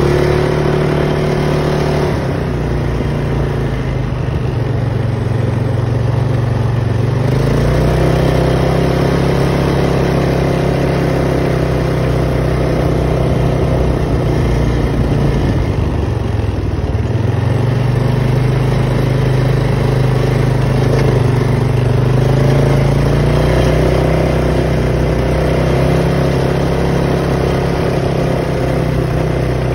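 Polaris Sportsman 570 ATV's single-cylinder engine running while riding. The engine note drops about two seconds in, rises again around seven seconds, sinks low in the middle as the ATV slows, and picks back up after that.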